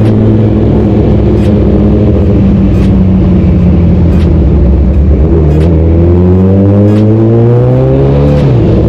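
Kawasaki ZX-14R's inline-four engine cruising steadily at low revs, then revving up smoothly from about five seconds in. The revs drop sharply near the end.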